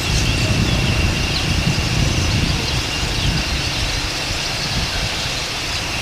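Outdoor ambience dominated by a low, uneven rumble, with a steady thin high-pitched tone and a few short bird chirps above it.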